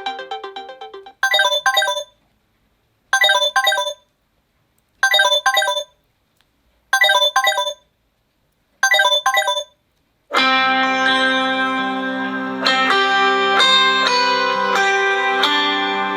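Samsung Galaxy Note 20 Ultra ringtones played one after another. A melody fades out, then a short high ringtone phrase repeats five times about two seconds apart with silence between. About ten seconds in, a fuller, sustained music ringtone begins.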